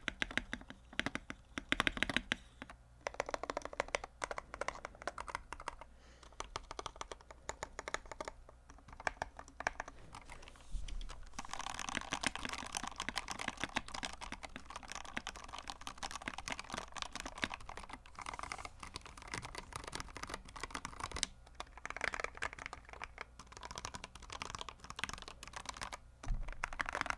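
Custom kit-built mechanical keyboard being typed on for a sound test: a dense, continuous run of key-switch clacks. The keystrokes come faster and closer together from about eleven to twenty-one seconds in.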